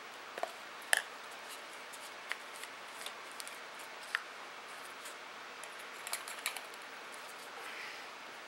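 Scattered light clicks and taps of a measuring spoon and seasoning container against a clear plastic mixing bowl as dry rub is measured in. There are a dozen or so short ticks, with a small cluster about six seconds in.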